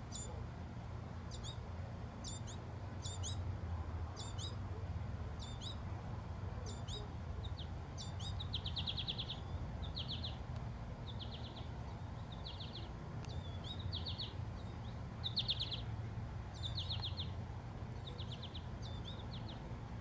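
American goldfinch calling: a string of short, high, sweeping chirps, then from about eight seconds in a run of short, buzzy, trilled notes about once a second.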